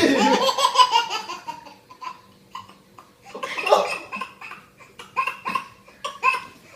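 A person laughing hard in repeated short bursts, fading briefly about two seconds in and then breaking out again.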